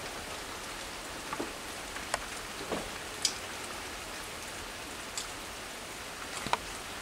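Steady rain falling, with a few louder single drops ticking now and then.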